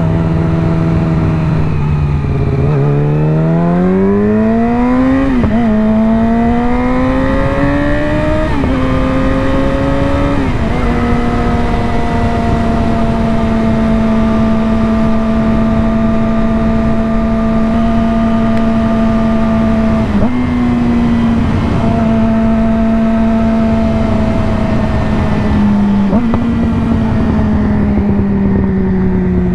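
2020 Yamaha R6's inline-four engine through an M4 slip-on exhaust with the catalytic converter removed, under way. It revs up through the gears, the pitch climbing and breaking at quick upshifts about 5, 8 and 10 seconds in, then holds a steady cruise, and eases off slowly near the end.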